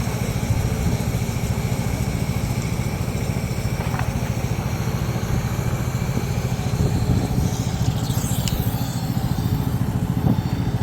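A small engine running steadily, with a few faint clicks over it.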